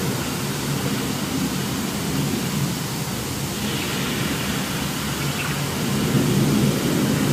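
Volcano show sound effects in a themed restaurant: a steady rushing rumble like rain and thunder.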